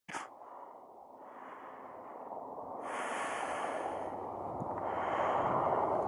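Black Hawk-type helicopter approaching low, its rotor and turbine noise a rushing sound that grows steadily louder. A brief click at the very start.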